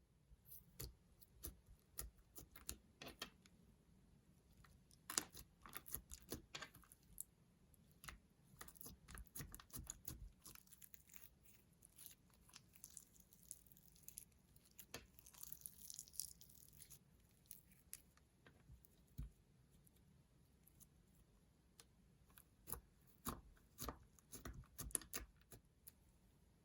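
Slime being squished and stretched by hand, making irregular clusters of small sticky clicks and crackling pops.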